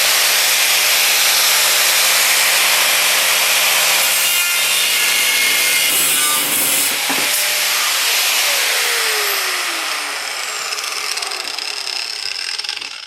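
A power tool cutting off the excess length of a metal bracket strap: a loud, steady grinding-cutting noise with the motor's steady hum, then the motor winds down with a falling pitch and the noise fades over the last few seconds.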